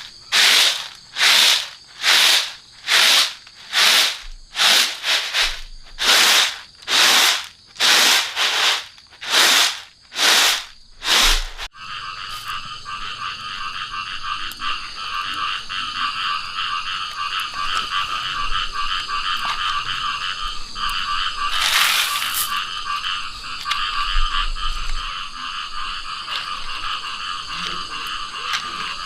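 Rhythmic scraping strokes, about one and a half a second, for roughly twelve seconds. They stop abruptly and give way to a steady chorus of calling frogs.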